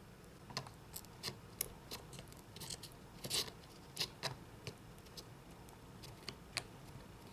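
Irregular small clicks and short scrapes of a pry tool working against an iPhone 5s's glued-in battery to lever it out, the adhesive loosened with alcohol.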